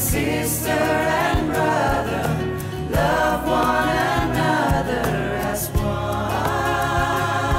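Christian worship song: singing voices over instrumental backing, with occasional drum hits.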